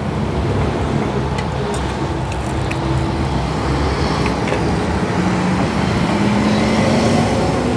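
Steady low rumble of background traffic noise, with a faint hum that rises slightly about five seconds in and a few light clicks.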